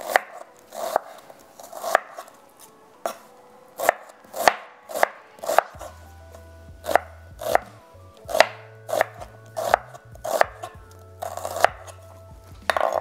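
Kitchen knife slicing a sweet onion thinly on a wooden cutting board, the blade knocking the board about once or twice a second in an uneven rhythm.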